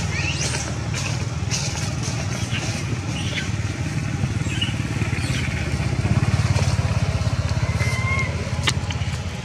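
An engine running steadily, a low rumble with a fine rapid pulse. A few short high chirps and a sharp click sound over it near the end.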